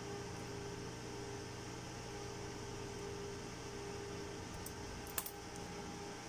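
Steady fan-like hum and hiss, with a quick pair of small sharp clicks about five seconds in as a plastic pry tool works against a video laryngoscope's plastic housing and rubber ring.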